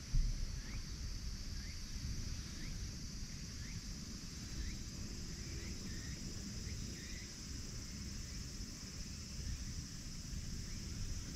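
Outdoor background: a steady high-pitched insect drone, with short rising chirps about twice a second for the first several seconds, over low rumbling noise. A brief low thump comes right at the start.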